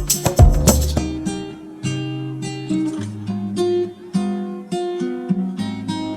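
Background music: acoustic guitar strumming and picking chords, with a beat at the start that drops out about a second in.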